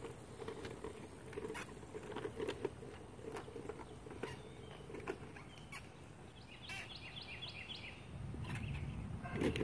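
Red Radio Flyer tricycle rolling on concrete: its hard wheels rumble and rattle with frequent small clicks and knocks, and the rumble grows louder about eight seconds in. A short run of rapid high chirps sounds about seven seconds in.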